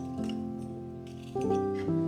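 Background music: soft held chords on a piano-like keyboard, changing about a second in and again near the end.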